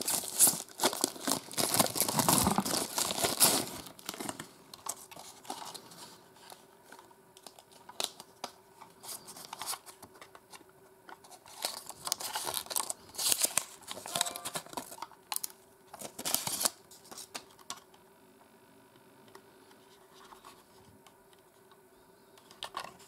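Thin white plastic packaging wrap crinkling and tearing as it is pulled off a small handheld radio, loud and continuous for the first few seconds. Then intermittent rustles and crinkles of paper and plastic as a paper slip is peeled off the radio's back, dying away a few seconds before the end.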